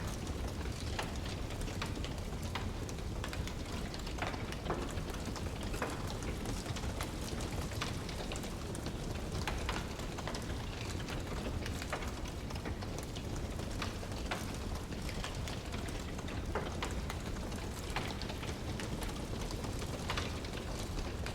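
Wood fire crackling: irregular sharp pops and snaps, several a second, over a steady low rumble.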